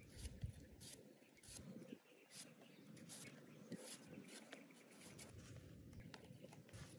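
Very quiet sound of a knife cutting through small tomatoes held in the hand, heard as faint, irregular clicks and snips over near-silent outdoor background.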